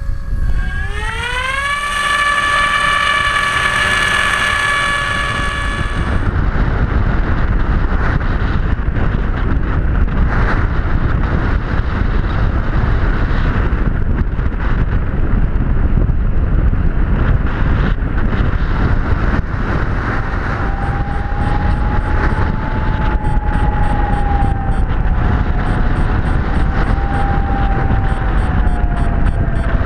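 Electric motor of an RC Skysurfer glider spinning up with a rising whine, holding a steady pitch for a few seconds, then cutting out. After that comes loud rushing wind and airframe noise, with a faint wavering whine coming back about two-thirds of the way through.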